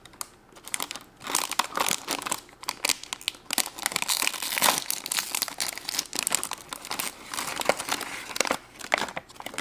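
A toy blind bag's wrapper being torn open and crinkled by hand, an irregular crackling and rustling.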